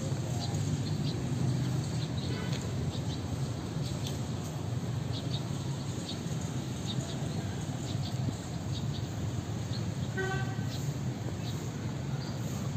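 Outdoor street ambience: a steady low rumble of town traffic with short high chirps scattered through it, and a brief vehicle horn toot about ten seconds in.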